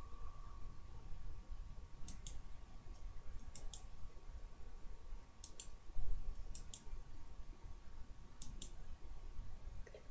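Computer mouse button clicking: five quick double clicks, one every second or two, over low room noise.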